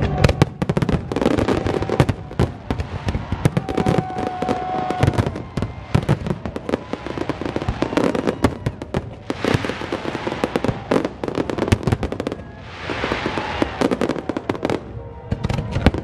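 Fireworks display: a dense barrage of aerial shell bursts, sharp bangs and crackles following one another several times a second, with a thicker hissing crackle near the end.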